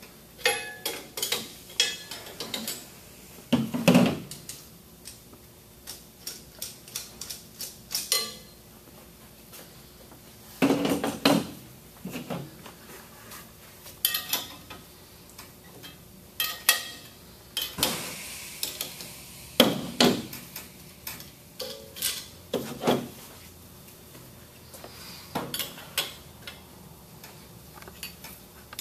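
Irregular metallic clinks and clanks of a wrench and stainless-steel tube fittings as the tubing is loosened and pulled off a chemical injection pump's flanges and housing, with a few louder knocks about 4, 11 and 20 seconds in.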